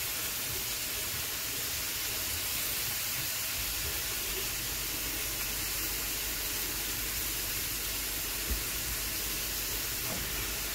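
Venison strips frying in melted butter in a pan, a steady sizzling hiss. A low hum joins in a few seconds in, and there is a single light knock about eight seconds in.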